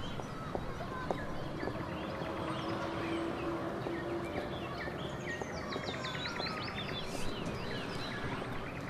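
Small birds chirping and twittering over a steady outdoor background hum, with a quick run of chirps about six to seven seconds in.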